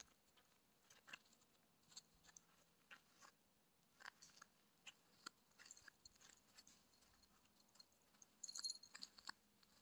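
Near silence with faint footsteps scuffing and crunching on a dry dirt path, soft irregular steps about every half second, and a louder crackly scrape near the end.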